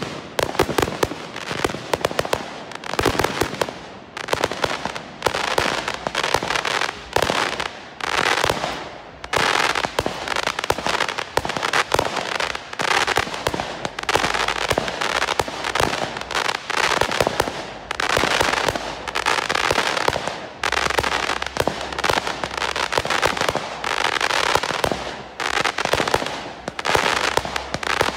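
Professional fireworks display: a rapid, unbroken run of bangs, several a second, as shots launch and burst.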